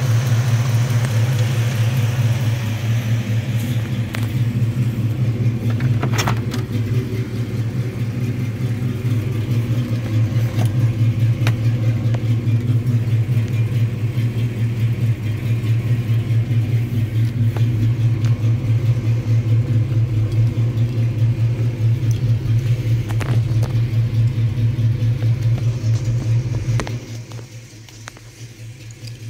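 1967 Chevrolet Camaro's V8 engine idling steadily with a low, even throb; the sound drops away for a couple of seconds near the end.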